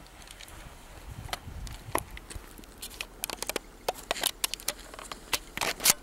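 Handling noise from a camera being moved while covered: irregular clicks, knocks and rustles. They get busier from about three seconds in, with the loudest scrape just before the end.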